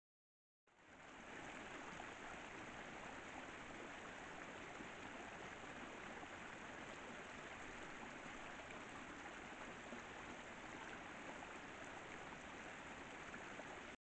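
Faint, steady rushing background noise recorded by a trail camera's microphone, fading in about a second in and cutting off suddenly near the end, with no distinct footsteps or calls.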